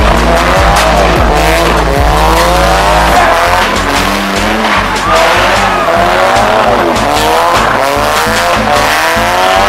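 Car engines revving hard, their pitch sweeping up and falling again over and over as cars slide around the wet lot. Music with a heavy bass line plays underneath.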